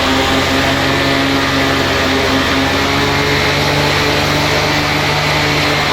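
Diesel engines of farm tractors at work in a silage maize harvest, running steadily at a constant speed.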